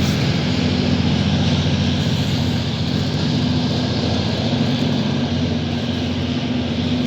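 Abu Qir line train running with a steady low engine drone over a wide rumble of noise.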